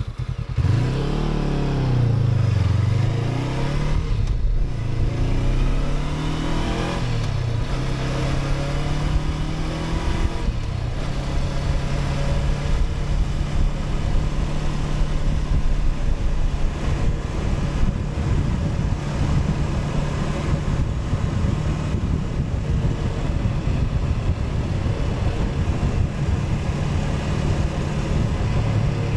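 Honda CB500X's parallel-twin engine pulling away, the revs rising and dropping through several gear changes over the first ten seconds or so, then running at a steady cruising speed.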